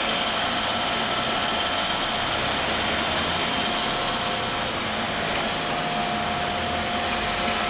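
Steady hum and hiss of the pumps and motors of a used-oil regeneration plant running, with a few faint constant whining tones.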